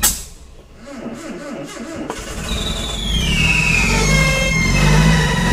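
1978 Datsun engine catching after a sharp pop: about two seconds in it starts running and grows louder, with a whine that falls steadily in pitch. It is running only on the fuel left in the carburetor bowl, the fuel pump apparently not delivering.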